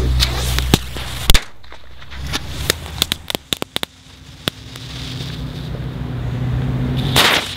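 A small firework going off on pavement: a run of sharp pops and crackles over the first few seconds, then a fizzing hiss that grows steadily louder and cuts off suddenly near the end.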